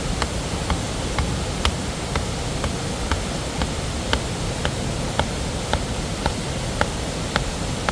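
Steady rushing of a nearby waterfall, with light sharp clicks repeating evenly about twice a second over it.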